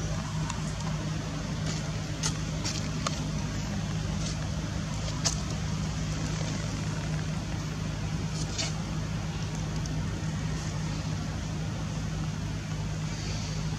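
A steady low hum with no break, with a few short sharp clicks scattered over it. The loudest click comes about five seconds in.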